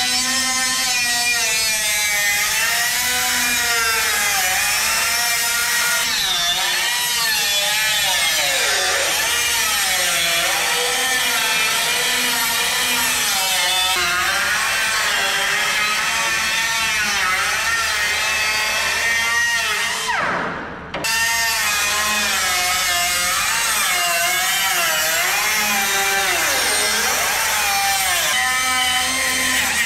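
Air-powered cut-off wheel cutting through sheet steel, its pitch wavering as the disc bites into the metal and eases off. About two-thirds of the way through it is let off and winds down in pitch, then starts up and cuts again.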